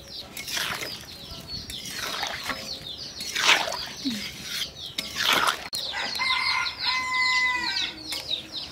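Small birds chirping constantly in quick high twitters, with several loud short swishes, and a rooster crowing one long held call about six seconds in.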